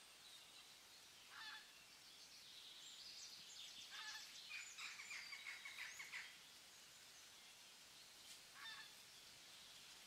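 Faint bird calls over a soft steady hiss: a short call about a second and a half in, a quick series of notes from about four to six seconds, and another short call near the end.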